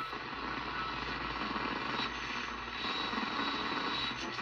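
Zenith 6S229 tube radio's loudspeaker giving steady AM-band static and hiss as the dial is turned between stations, with a faint high whistle about two seconds in.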